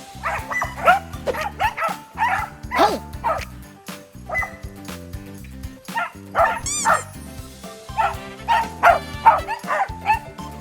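Welsh corgi barking again and again in short, quick yips and barks, over background music.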